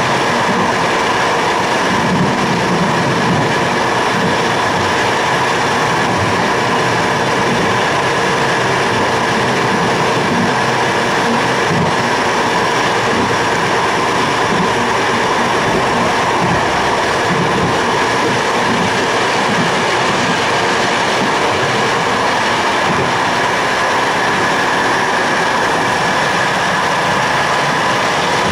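Train running at speed along the line, heard from inside: a steady rumble of wheels on rails with a faint steady whine over it.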